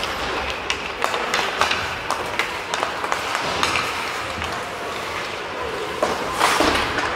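Ice hockey play: sharp clacks of sticks on the puck and ice, scattered all through, with a longer scraping rush near the end.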